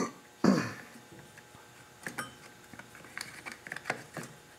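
Strap wrench being fitted around a small engine's flywheel: a loud knock about half a second in, then a scatter of light clicks and rattles as the strap and handle are worked into place.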